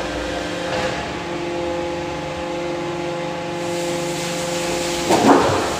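Large four-column hydraulic embossing press's power unit running with a steady hum of several fixed pitches as the ram travels. About five seconds in the hum breaks off with a short, louder burst of noise, then part of the hum resumes.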